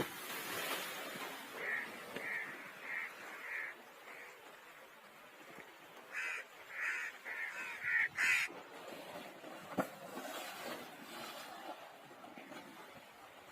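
Bird calls: a run of about five short, evenly spaced calls, then after a pause a louder run of about six, over a steady background noise.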